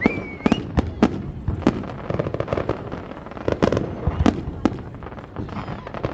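Fireworks going off in quick succession: repeated sharp bangs with crackling between them, and a short rising whistle at the start.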